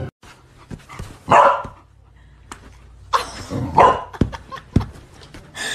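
Several short, loud animal calls: one about a second in, two close together around three to four seconds in, and one near the end, with a couple of sharp knocks between them.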